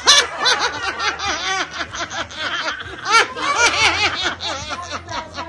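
Several people laughing together, their laughs overlapping, with a louder burst about three seconds in.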